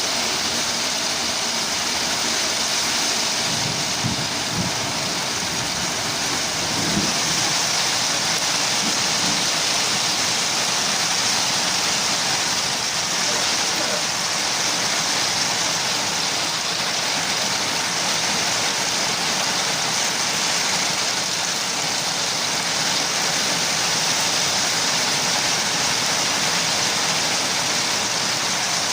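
Heavy rain pouring down steadily as an even, unbroken hiss.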